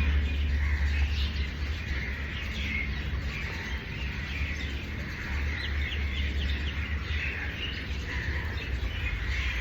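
Small birds chirping and tweeting over the steady hiss of falling rain, with a quick run of higher chirps around the middle. A steady low rumble lies underneath.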